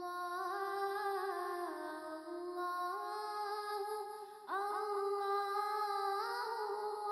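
Background music of a wordless hummed vocal melody, with long held notes that slide from one pitch to the next and a new phrase coming in about four and a half seconds in.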